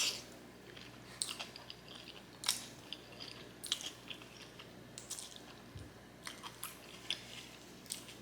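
Close-miked chewing of a mouthful of black bean noodles topped with kimchi: irregular wet clicks and crunches, the loudest right at the start.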